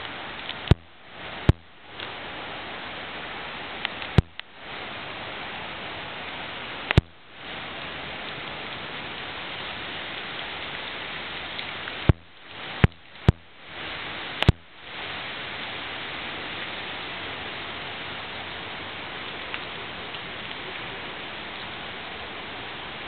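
Strong wind rushing through the trees, a steady hiss with no pitch. Several sharp clicks cut in, each followed by a brief dip in level.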